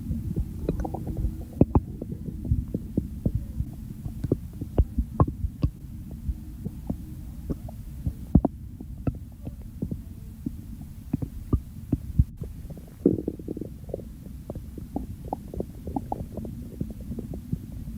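Human stomach and bowel gurgling: a steady low rumble under many small sharp pops and gurgles, a few a second, with a thicker cluster about 13 seconds in.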